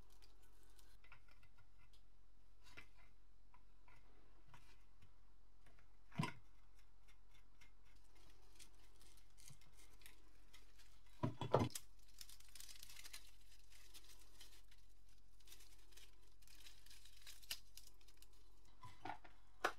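Faint crackling and scraping of brittle, rusted mica insulation sheets and sheet-metal parts as a corroded early 1900s Varta electric iron is taken apart by hand. A few sharper clicks stand out: one about six seconds in, a quick cluster a little after halfway, and one near the end.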